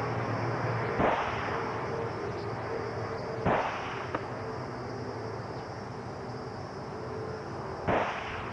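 Three sharp bangs, about one, three and a half, and eight seconds in, over a steady hum.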